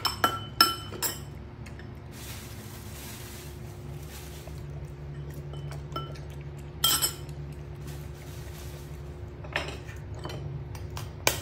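Metal spoon clinking against a ceramic bowl: three quick clinks in the first second, then single clinks about seven seconds in and near the end, over a steady low hum.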